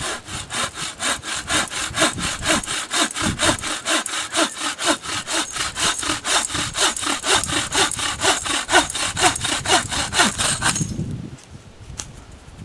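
Hand saw cutting through a hawthorn branch for firewood, in quick regular back-and-forth strokes of about four a second. The sawing stops about eleven seconds in and starts again at the very end.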